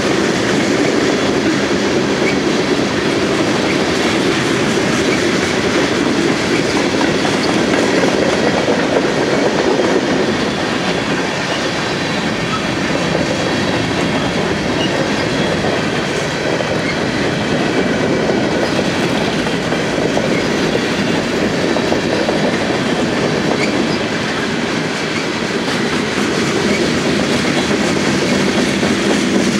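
Freight cars of a passing freight train (covered hoppers, then gondolas) rolling by at a steady speed: a continuous, even rumble and clatter of steel wheels on the rails.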